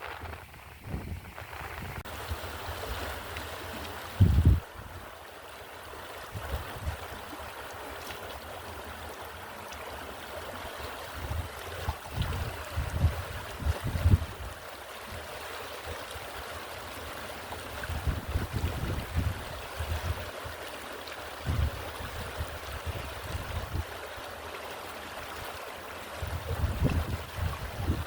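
Water flowing steadily in a stream, with intermittent gusts of wind buffeting the microphone as low rumbles, the strongest about four seconds in and others later on.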